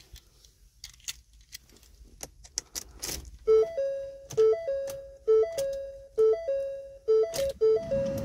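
Keys jangling and clicking at the steering column of a 2016 Ford Transit, then the van's dashboard warning chime starting about halfway through: a three-note ding repeating about once a second as the ignition is switched on.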